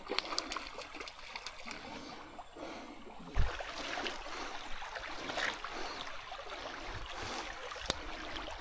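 Shallow, rocky creek water trickling over stones, with a single short low thump about a third of the way in.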